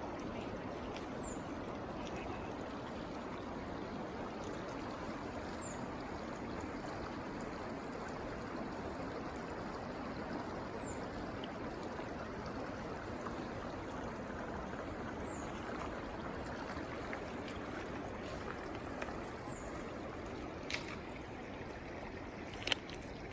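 Steady rushing of a mountain stream or falls. A small bird gives a short, high, falling note about every four to five seconds, and two sharp clicks come near the end.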